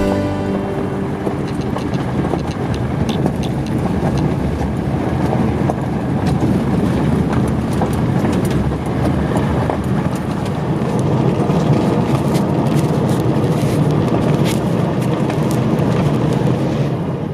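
Subaru Crosstrek driving off road: a steady rumble of tyre and road noise, with scattered small ticks and clicks.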